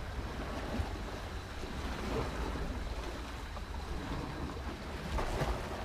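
Waves washing against the rocks, with wind buffeting the microphone.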